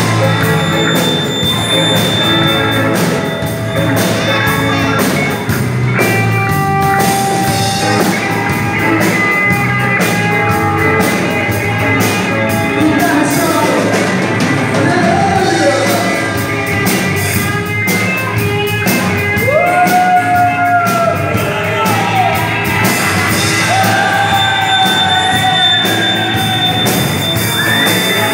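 Live rock band playing loudly, with electric bass, drum kit and electric guitar, and a man singing into a microphone over it, the singing clearest in the second half.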